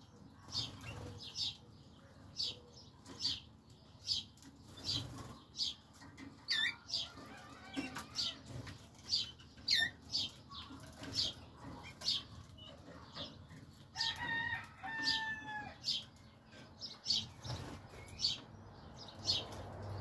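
Malinois (Waterslager) canaries calling in a flight cage: short high chirps repeating about once a second, with a few downward-gliding notes and, about two-thirds of the way through, a pair of lower held whistled notes.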